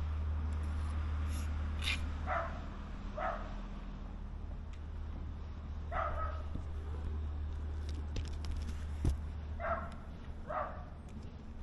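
A dog barking five times in short, falling barks, mostly in pairs about a second apart, over a steady low rumble.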